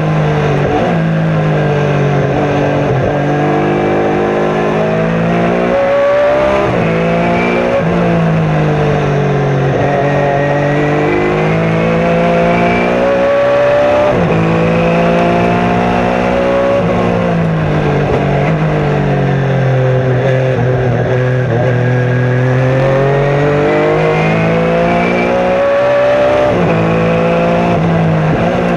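Chevrolet V8 of a 1990 Beretta Trans-Am race car at racing speed, heard from inside the cockpit. The engine note climbs under throttle and drops sharply at each gear change or braking point, over and over through a lap.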